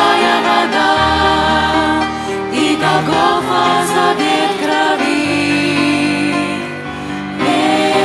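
Small mixed group of women, men and children singing a Russian-language hymn together into microphones.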